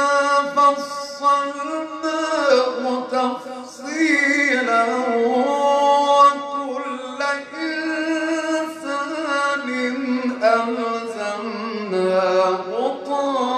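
A man's voice reciting the Quran in the slow, melodic mujawwad style, holding long ornamented notes that glide up and down in pitch.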